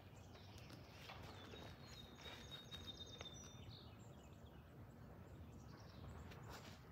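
Near silence with soft footsteps on grass and a faint, high bird trill lasting about a second and a half near the middle.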